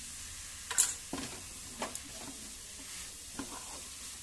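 A wooden spatula stirs and scrapes a thick coconut and khoya mixture around a nonstick kadhai, in irregular strokes over a faint steady hiss, with one sharp knock a little under a second in.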